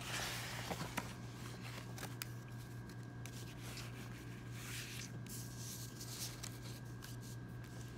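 Plastic dry-erase sleeves and paper sheets being slid and shuffled across a tabletop by hand, with a few light clicks, most noticeably in the first second and again about halfway through. A steady low hum sits underneath.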